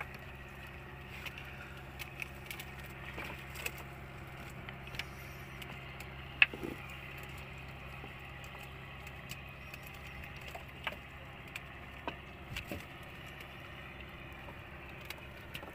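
A small boat engine idling steadily, with scattered clicks, knocks and rattles from the wire-mesh fish trap and the fish being worked out of it; one sharp knock about six seconds in is the loudest.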